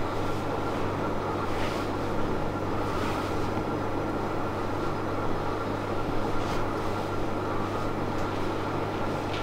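Steady machine hum with a thin high tone running through it, with a few soft rustles on top.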